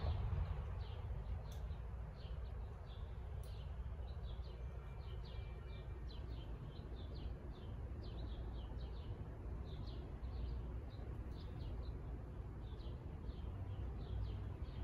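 Small birds chirping repeatedly in short, quick calls over a steady low background rumble.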